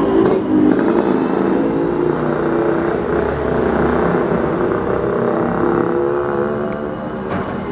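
Motorcycle engines running as motorcycles ride along a street toward the listener, the engine note drifting up and down a little.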